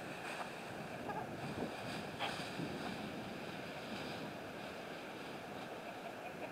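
Steady wind noise rushing on the microphone outdoors, with a few faint short sounds from a foraging flock of backyard chickens.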